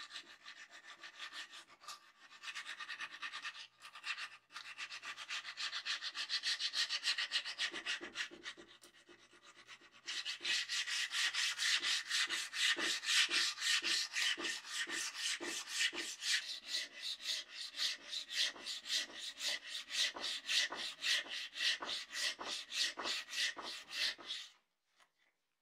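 Abrasive paper rubbed back and forth by hand along a wet, rusty steel sword blade, scrubbing off the rust. The strokes grow louder and quicker about ten seconds in, to an even rhythm of about four a second, and stop abruptly just before the end.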